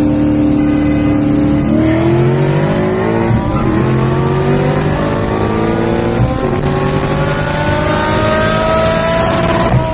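Car engine accelerating hard: a steady note gives way to rising revs, broken twice by gear changes where the pitch drops and climbs again.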